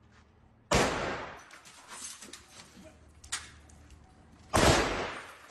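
Gunshots in a street: one loud shot about a second in, a fainter crack after about three seconds, and two more loud shots close together near the end. Each shot echoes briefly.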